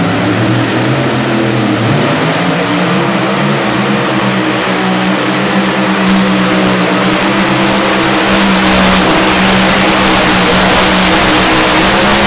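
A competition pulling vehicle's engine at full throttle, dragging the weight-transfer sled down the track. The steady engine note grows louder as it approaches and is loudest over the last few seconds.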